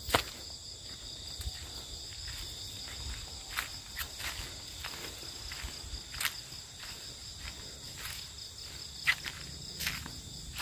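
Steady high-pitched insect chorus, crickets and similar, holding on two or three unchanging pitches. Irregular light clicks and taps sound over it, the sharpest just after the start and another about nine seconds in.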